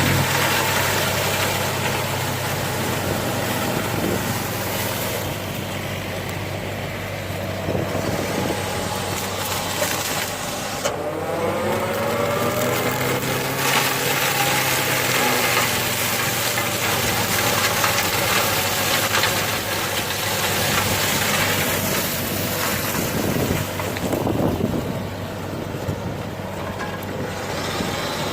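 Mini excavator's diesel engine running under load while a hydraulic mulcher head spins and shreds grass, the shredding noise swelling and easing as it works. About eleven seconds in, a whine glides up and down for a few seconds.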